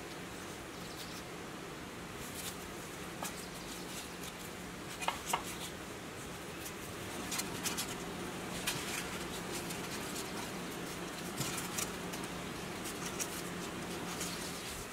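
Soft taps and light clicks as gloved hands handle rounds of bread dough and set them one by one into long metal loaf pans, over a faint steady hum.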